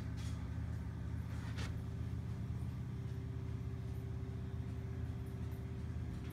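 A steady low hum with a faint higher tone joining about halfway through, and a couple of faint clicks.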